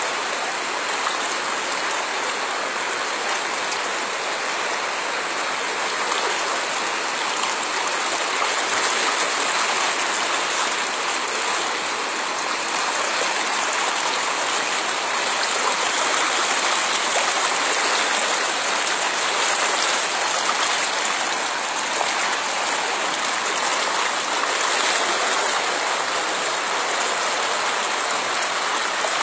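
Muddy floodwater running fast along a flooded village road: a steady rushing of water.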